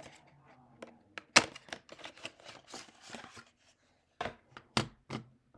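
Sharp snaps and clicks with rustling between them as a speedcubing hand timer is unpacked from its packaging. The loudest snap comes about a second and a half in, and three more snaps come near the end.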